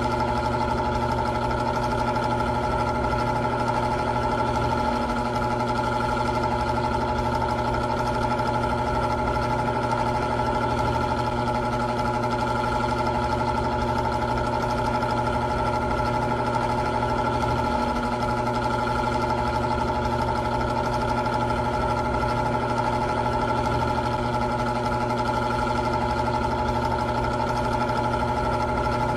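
Old electric fan running steadily: a constant motor hum with several fixed tones and a low rumble, unchanging throughout.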